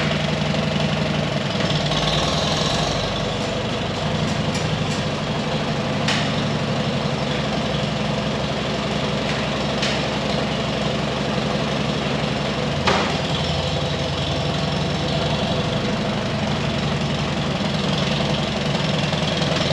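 Farm machinery engine running steadily, with a few short sharp knocks scattered through.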